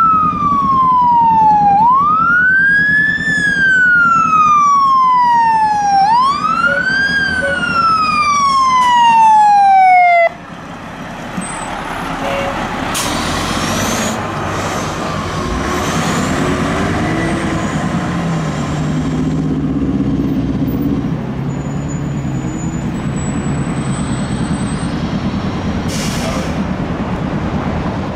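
Fire engine siren wailing, rising quickly and then falling slowly about every four seconds, until it cuts off suddenly about ten seconds in. After that a fire engine's diesel engine runs among traffic noise, its pitch rising as it pulls away.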